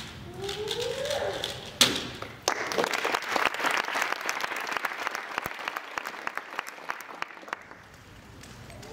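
A single sharp slap as the solver's hands hit the Speed Stacks timer to stop it. About half a second later, an audience starts applauding, and the clapping dies away after about five seconds.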